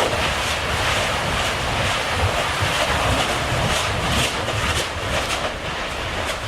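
Erupting Kīlauea lava fissure giving off a steady rushing noise like surf, with faint crackles and a low uneven rumble of wind buffeting the microphone.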